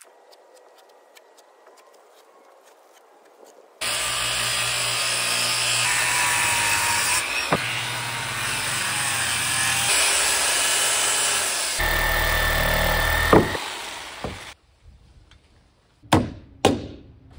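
Corded circular saw cutting a pressure-treated wooden board, starting suddenly about four seconds in and running about ten seconds with abrupt changes between cuts, then stopping. Near the end, about three sharp hammer blows on wood.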